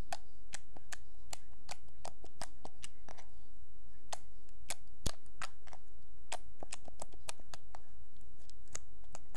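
Homemade slime being squished and poked by hand, giving a run of short sharp clicks and pops, about two or three a second, with one louder pop about five seconds in. A low steady hum lies underneath.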